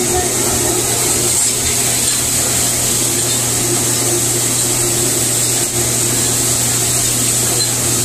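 Jackson Conserver XL-E commercial dishwasher running its wash cycle: a steady hum with a hiss of water spraying inside the cabinet, partway through the short 1.5-minute cycle.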